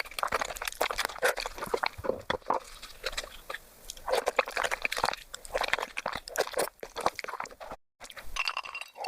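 Close-miked eating sounds sped up several times: a dense, rapid run of wet chewing, crunching and smacking clicks. The sound drops out abruptly for a moment near the end, then resumes.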